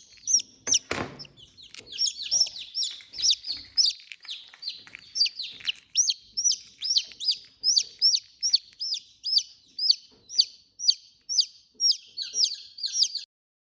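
Parrot-beak long-tail aseel chicks peeping: a steady run of high, downward-sliding peeps, about two or three a second. There is a single knock about a second in, and the sound cuts off suddenly near the end.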